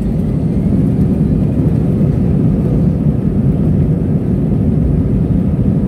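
Jet airliner heard from inside the passenger cabin while it moves on the ground: a steady low rumble of engines and rolling that grows a little louder in the first seconds.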